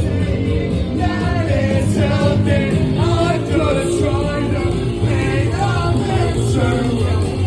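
Rock band playing live with a singing voice over a heavy, steady bass.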